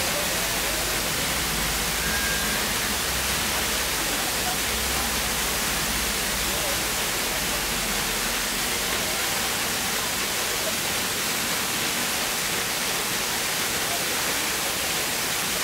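Waterfall pouring into a rock pool: a steady, even rush of falling water with a hiss that holds at one level throughout.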